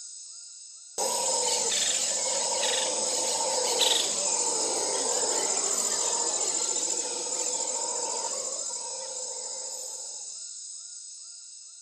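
A steady, high chorus of insects with chirping calls, cutting in suddenly about a second in and slowly fading out.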